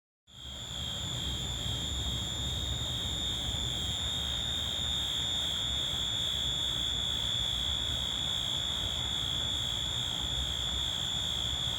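A steady high-pitched tone with a faint wobble cuts in abruptly from silence and holds at an even level over a low rumble.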